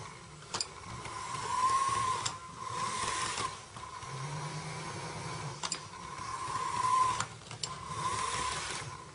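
Small electric motor of a toy train locomotive whirring with a steady high whine that swells and dips, the motor straining as the locomotive butts against a cat lying across the track. A few sharp clicks break in here and there.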